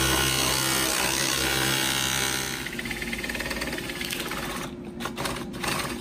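Handheld drill boring into plywood with a Forstner bit: the motor runs steadily with the bit cutting, then about two and a half seconds in the sound drops and turns rougher, stopping and starting in short spurts near the end.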